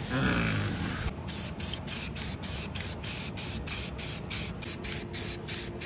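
Aerosol spray-paint can hissing from about a second in, sprayed in quick short pulses about five times a second while stencilling white lettering onto a tyre sidewall.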